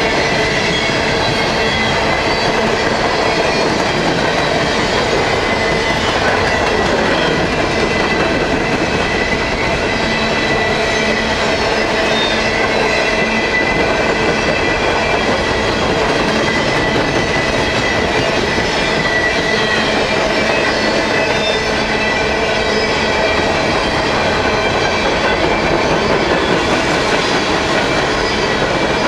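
Empty coal hopper cars of a long freight train rolling past at speed: a steady, loud rumble and clatter of wheels on rail, with a ringing wheel tone held over it.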